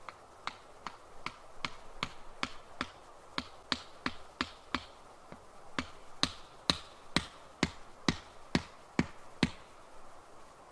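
Tent peg being hammered into the ground: a steady run of about twenty sharp knocks, two to three a second, growing louder in the second half and stopping about a second before the end.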